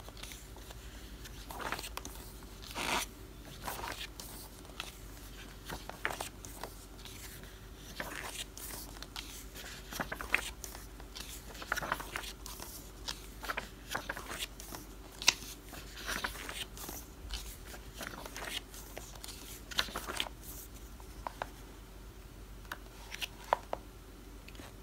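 Pages of a photo book being turned one after another, with short, irregular paper rustles and flaps at each turn.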